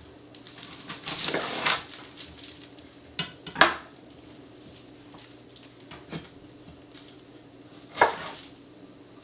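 A kitchen knife knocking on a cutting board a few sharp times while an onion is cut and peeled, with a longer scraping, rustling stretch about a second in.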